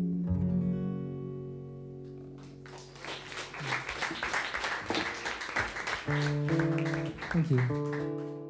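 Acoustic guitar's closing notes ringing out and fading, then a few seconds of audience applause, then a few more guitar notes, one of them sliding down in pitch.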